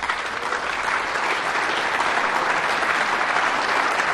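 Audience applauding: a steady wash of many people clapping that holds at an even level.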